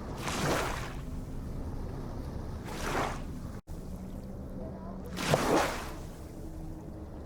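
Ocean waves washing in, a surge of surf about every two and a half seconds over a steady low rumble. The sound drops out for an instant just past halfway.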